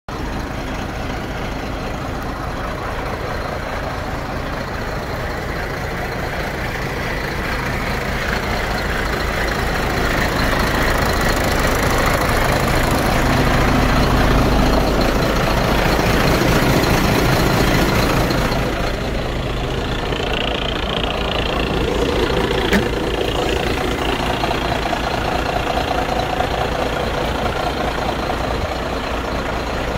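Diesel engine of an Iveco 430 PS 6×2 tractor unit idling steadily. It grows louder for several seconds, then drops back about two-thirds of the way through.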